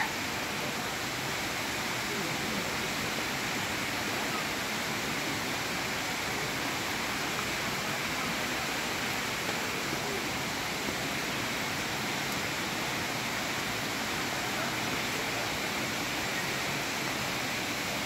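Steady rushing of a waterfall, water pouring and splashing over rocks in a stream, with an even level throughout.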